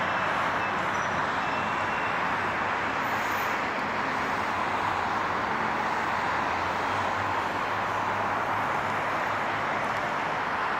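Steady road traffic noise from cars, vans, trucks and buses on a busy multi-lane city road, engine and tyre noise blending into an even rush.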